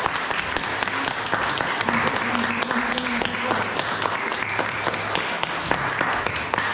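A small group of people applauding, a steady patter of hand claps.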